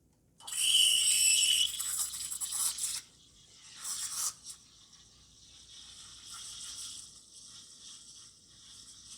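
Anko espresso machine's bare steam wand, without a panarello attachment, steaming milk in a tilted pitcher to froth it. It starts about half a second in with a loud hiss carrying a couple of high whistling tones for about two and a half seconds, flares briefly again near four seconds, then settles into a quieter steady hiss as air is worked into the milk.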